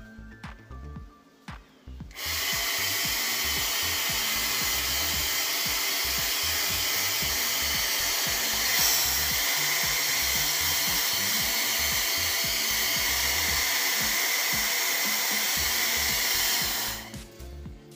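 Handheld hair dryer blowing steadily, switched on about two seconds in and off about a second before the end.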